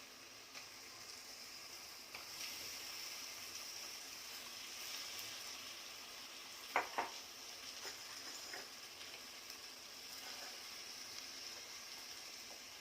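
Chicken sizzling as it fries in hot oil and masala in a pan: a steady faint hiss that grows about two seconds in. A few light clicks and one sharper knock about seven seconds in.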